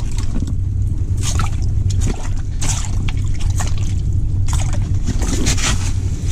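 Water trickling and splashing as a freshly landed crappie is held and handled over an ice-fishing hole, in irregular spurts, over a steady low rumble.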